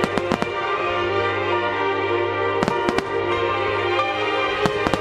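Music starmine fireworks: aerial shell bursts going off in three quick clusters of bangs, just after the start, about two and a half seconds in, and near the end, over the show's music soundtrack playing steadily.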